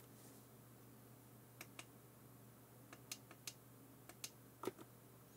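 A few faint, irregular clicks of computer keys being pressed, with pauses between them.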